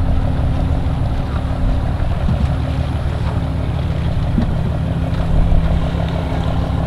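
An engine idling steadily: a low, constant hum with a fast, even pulse.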